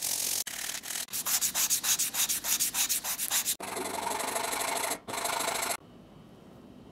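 Sandpaper rubbed by hand back and forth over a wooden cleaver handle in quick strokes, about five a second. About three and a half seconds in it gives way to a steadier rasp of a metal file on the wood, which stops suddenly near the end.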